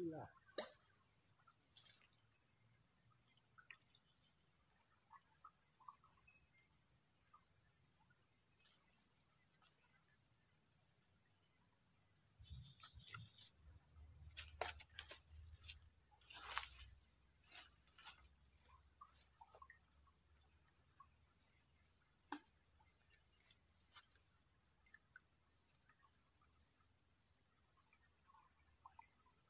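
Steady, high-pitched chorus of insects from the surrounding forest, running without a break. A few short, faint clicks and rustles come through it near the middle.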